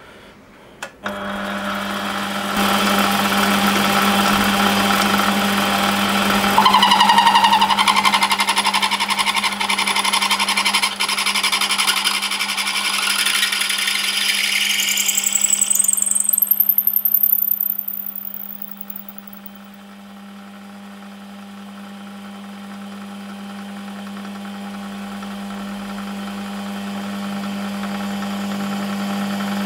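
Small lathe's motor starts about a second in and runs with a steady hum while a machine reamer is fed through a phosphor bronze bush, giving a loud cutting noise with a squeal that climbs in pitch. The cutting stops after about 17 seconds, leaving the lathe running on its own.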